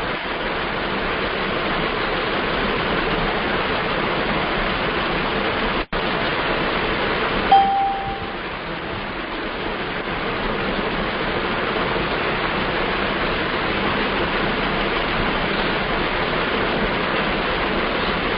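Steady rushing background noise that cuts out for an instant about six seconds in, with a short high beep about a second and a half later.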